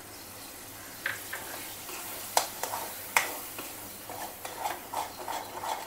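Steel spoon stirring and scraping thick chilli paste in a steel kadhai, with a faint sizzle of hot oil underneath. Two sharper clinks of spoon on pan come about two and a half and three seconds in, followed by a run of short scrapes.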